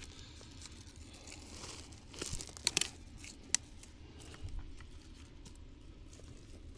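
Rustling and crackling of weeds and small branches being pulled and handled, with a cluster of crackles about two and a half seconds in and a single sharp snap about a second later.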